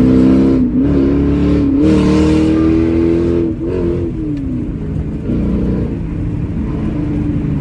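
Chrysler 300's Hemi V8 accelerating hard, its engine note climbing with a few brief dips at gear changes, then falling back to a lower, steadier run about four seconds in.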